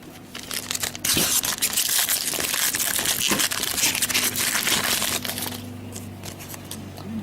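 Foil trading-card pack wrapper being torn open and crinkled in the hands: a dense crackling rustle lasting about four seconds, then a few lighter crinkles and clicks.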